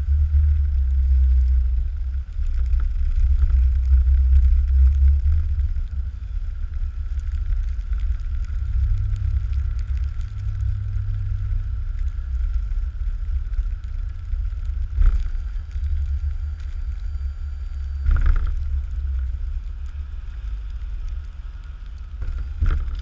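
Pickup truck running and moving with its back blade down in snow, heard as a steady low rumble mixed with wind buffeting the microphone. Two sharp knocks come about two-thirds of the way through, a few seconds apart.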